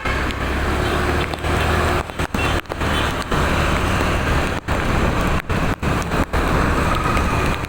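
Road traffic noise: a heavy engine's low rumble under a steady hiss, with the sound cutting out briefly several times.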